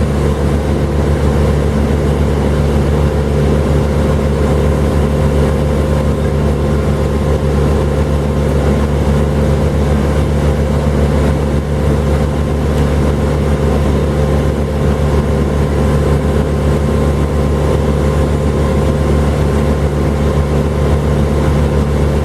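An engine running steadily at a constant speed, loud, with a low, even drone that does not rev up or down.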